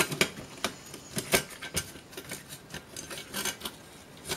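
Irregular small clicks and taps of tools and metal and plastic laptop parts being handled during disassembly, about a dozen over a few seconds, the loudest about a second and a half in.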